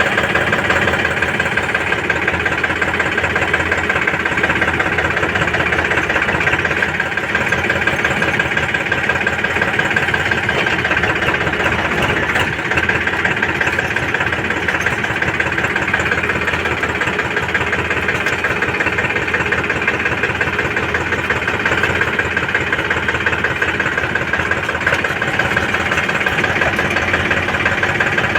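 Heavy diesel engine running steadily at a constant speed, with an even, fast pulse and a steady high-pitched whine over it.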